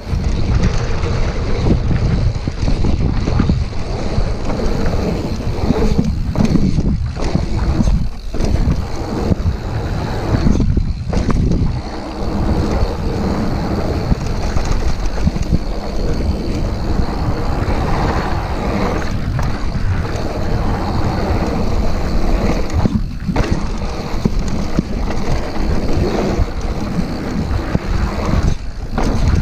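Wind buffeting an action camera's microphone as a Scott Genius full-suspension mountain bike rides fast down a dirt trail, mixed with its tyres rumbling over the ground. The noise is loud and steady, with a few brief lulls.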